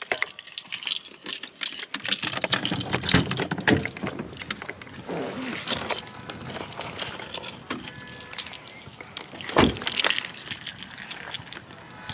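Jangling and clattering handling noise, like keys and small objects being moved about, with many small clicks and rustles and a dull thump a little before ten seconds in.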